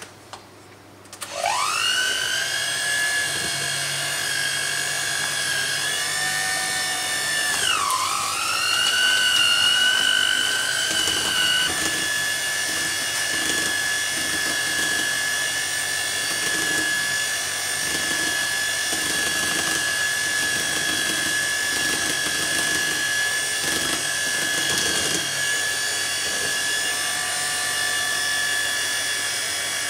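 Electric hand mixer spinning up with a rising whine about a second in, then running steadily as it beats cream cheese icing with icing sugar. Its pitch sags briefly and recovers about eight seconds in, then steps up slightly near twelve seconds and holds.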